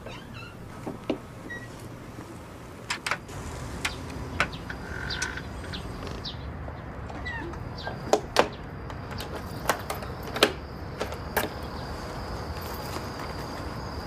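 A string of sharp, scattered clicks and knocks, about ten in all, several in pairs, over a low steady rumble that swells a few seconds in.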